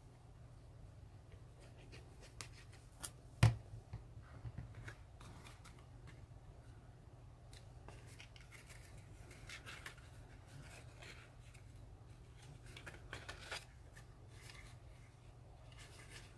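Chipboard pieces of a handmade album being handled and pressed together: faint scattered rustles and small taps, with one sharp tap about three and a half seconds in, over a low steady hum.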